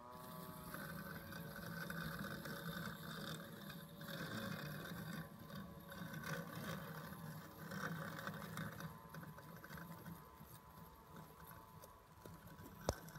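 Husqvarna Automower robotic lawnmower running as it drives across the grass: a whine rising in pitch at the start, then a steady motor hum and whirr that swells and fades as it moves. A single sharp click near the end.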